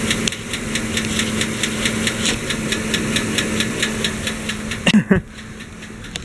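Chevy 5.3 V8 idling with a rapid, regular ticking from the valvetrain: a lifter tick, which the owner takes for failing lifters rather than an exhaust leak or a bearing. The sound drops off sharply about five seconds in.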